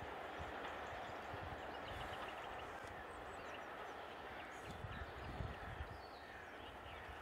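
Faint, steady rumble of a train running, slowly fading away, with a few low thuds.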